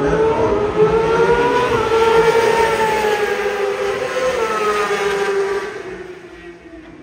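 Superbike engines at high revs on a race circuit: a high-pitched engine note rising in pitch, then holding high with small dips, and fading away about six seconds in.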